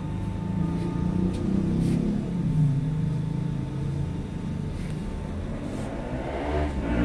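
Low rumble of a motor vehicle's engine, rising and falling in level, with a faint steady high hum underneath; near the end the engine grows louder and its pitch starts to climb.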